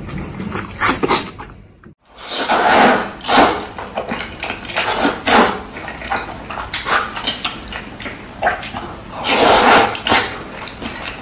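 Close-miked eating: chewing and mouth smacks, then after a brief cut about two seconds in, loud repeated slurping of noodles, each slurp a long noisy draw.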